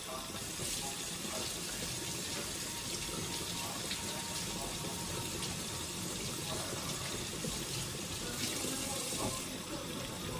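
Floured white snapper deep-frying in a cast-iron skillet of hot oil: a steady sizzle.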